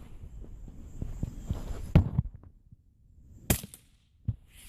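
A CCI CB Long .22 rimfire round fired from a Marlin Micro-Groove bolt-action rifle: one quiet pop about two seconds in, followed by a couple of sharp clicks.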